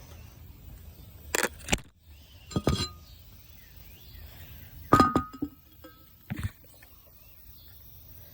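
A handful of separate knocks and clinks, hard objects being handled. The loudest, about five seconds in, rings on briefly with a clear tone.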